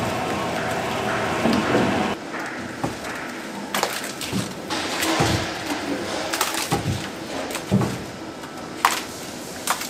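Thick, wet kimchi seasoning paste (red pepper with shredded radish) slops and splatters out of a mixing machine into a stainless-steel bin. A hand scraper knocks and scrapes irregularly along the steel.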